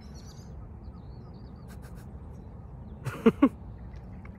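Common raven giving two short, quick calls close together about three seconds in, over a steady low rumble.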